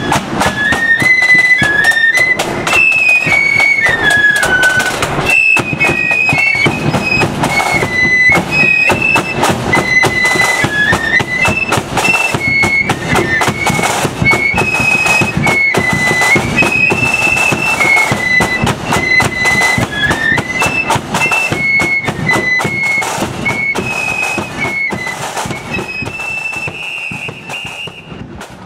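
Marching flute band playing a lively tune on flutes over a bass drum and drums. A held high note comes near the end as the sound fades away.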